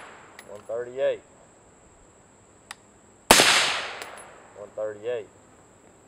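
A single suppressed shot from a 16-inch PWS 5.56 rifle firing 55-grain ball through a Mystic X 9mm silencer, about three seconds in: a sharp report that echoes away over about a second, metering around 138 dB. The fading tail of the previous shot is heard at the start.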